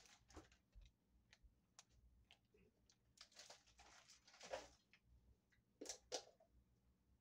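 Near silence: faint scattered clicks and rustles of things being handled in a small room, with a few stronger rustles in the middle and two sharper clicks near the end.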